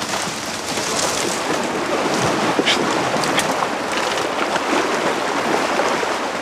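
Steady rushing of river water, with scattered snaps and rustles of brush as cattle push through.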